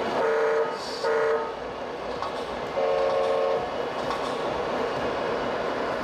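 Multi-tone air horn from a model truck's sound module: two short blasts about a second apart, then a longer one, over a steady din.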